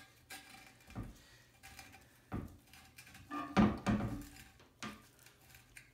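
Plastic lock nut being threaded by hand onto a new flush valve's shank against the underside of a porcelain toilet tank: a handful of light knocks and scrapes of plastic on china, the loudest clunks about three and a half to four seconds in.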